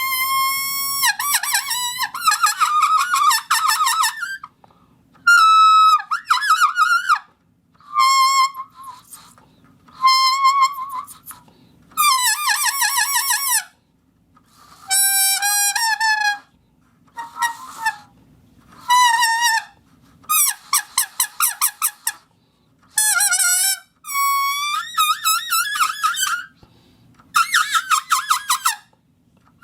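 Foley 'animal speech' sound effect: high-pitched, squeaky gibberish chatter in about fourteen short phrases of one to two seconds, with brief gaps between them. The pitch bends up and down, and some phrases warble rapidly.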